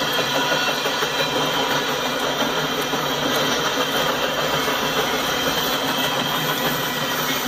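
Steady rumble and rattle of double-stack container well cars rolling past on jointed track: wheels on rail and car bodies clattering, with faint steady tones running through the noise.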